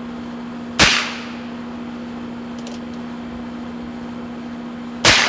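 .22 rimfire Heritage Rough Rider single-action revolver fired twice, about four seconds apart: two sharp cracks with a brief ring after each. A steady low hum runs underneath.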